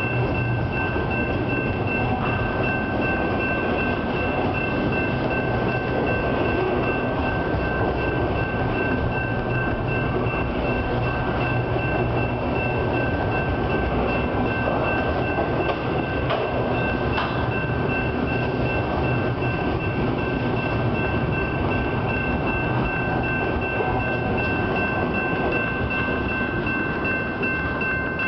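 Double-stack intermodal freight cars rolling past, a steady rumble of wheels on rail, with a grade-crossing warning bell ringing over it. The rumble falls away near the end as the last car passes.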